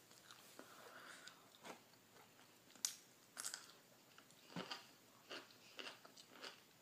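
Faint close-up chewing of a grilled cheese sandwich: soft wet mouth clicks and smacks, scattered irregularly, with a sharper click about three seconds in.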